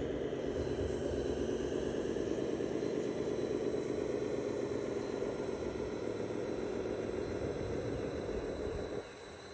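Steady whine of a small electric motor in an RC model construction machine, dropping off sharply about nine seconds in.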